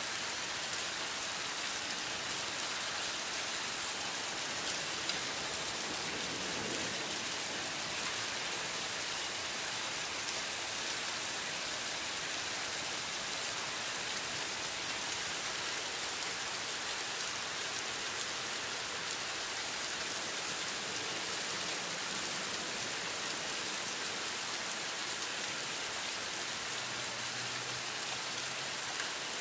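Heavy rain from a severe thunderstorm falling steadily, an even hiss with no break.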